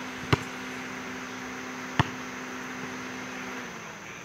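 A basketball bouncing twice on a hard court, two sharp slaps about a second and a half apart, as a free-throw shooter dribbles before the shot. A steady low hum runs underneath and dips slightly in pitch near the end.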